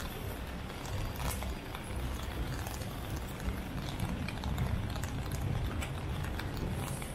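Busy city street ambience: a steady low rumble of the street with scattered footsteps and small sharp clicks.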